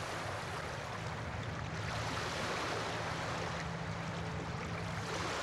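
Steady rushing water, like a river or surf, with a faint low hum underneath.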